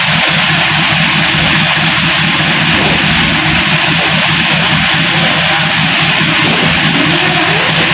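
Massey Ferguson tractor engine running steadily while the tractor stands still, a constant low engine note under a loud, even hiss.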